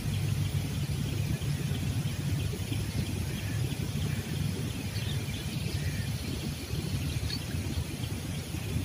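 Steady low outdoor rumble beside a river, with a few faint bird chirps about five to seven seconds in.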